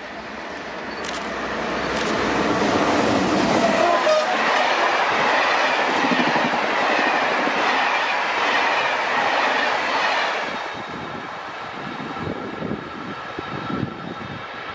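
Electric locomotive BB 22330 hauling Corail coaches passing at speed: the noise builds over the first few seconds, stays loud until about ten seconds in, then eases off as the last coaches roll by with rattling wheels on the rail joints.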